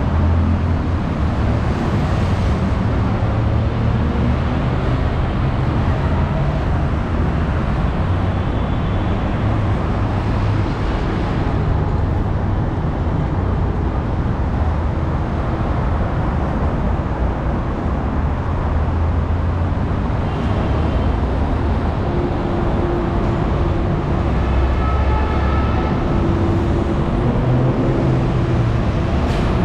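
Continuous road traffic noise from cars, vans and buses, with a steady low engine hum and a few short higher-pitched tones now and then.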